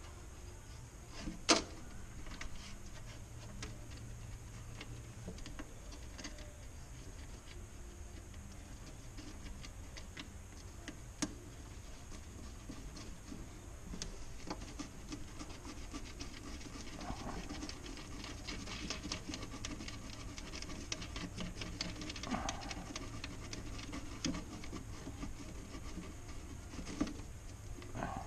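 Hands working on an aircraft wheel pant while fitting a small LED lamp and its wire: light rubbing and scratching with many small irregular clicks, and one sharper click about a second and a half in.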